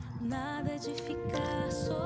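Soft background music with held notes and a gentle melody.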